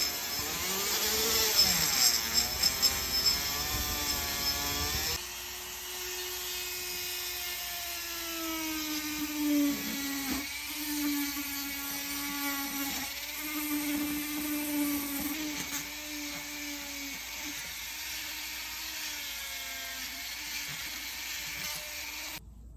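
A small electric power tool running against metal parts. Its motor pitch sags and recovers as the tool is pressed to the work and eased off. The sound changes abruptly about five seconds in.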